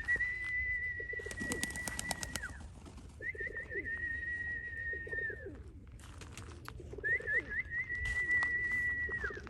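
Domestic pigeons cooing, with three long, steady whistled notes over them, each opening with a few quick upward flicks. A quick run of sharp clicks comes about two seconds in.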